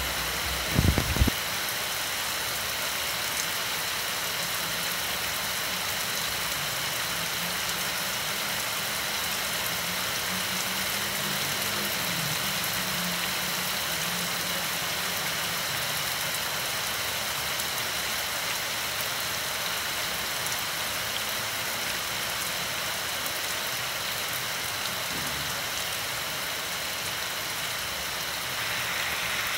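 Heavy rain falling steadily on hard surfaces, a dense even hiss. A few low thumps about a second in.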